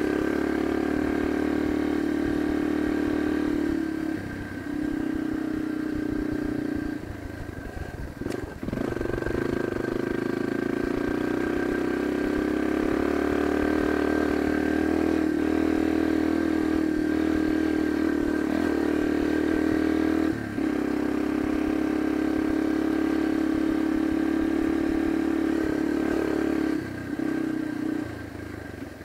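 Yamaha dirt bike engine running under way, holding a steady pitch. The throttle eases off around four seconds in, again for a couple of seconds around eight seconds, briefly near twenty seconds, and once more near the end.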